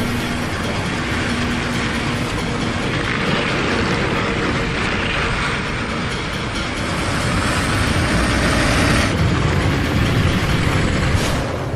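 Ride-film sound effect of a sled running fast along a track: a steady rumbling rush with a high hiss that thins out about nine seconds in.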